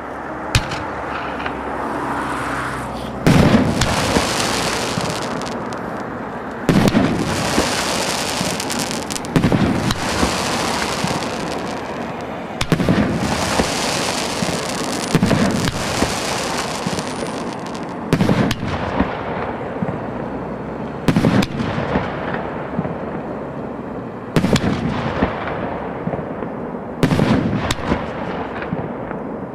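CGF-1303 consumer fireworks cake firing shot after shot: a loud bang about every three seconds, with a crackling hiss between the bangs.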